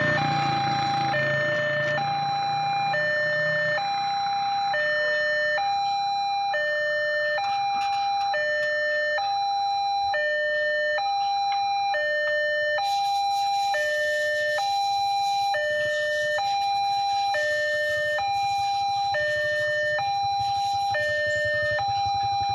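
Railway level-crossing warning alarm sounding a steady two-tone, high and low tones alternating evenly, each held a little under a second, signalling an approaching train.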